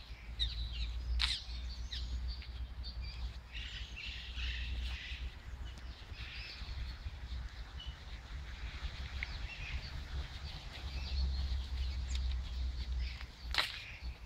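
Small songbirds chirping and singing in many short, high calls, over a steady low rumble, with two sharp clicks, one about a second in and one near the end.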